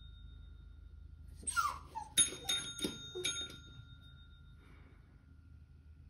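A dog whines briefly, then rings her hanging training bell about four times in quick succession, and the bell's ringing dies away. The dog is bell-trained to ask to go outside.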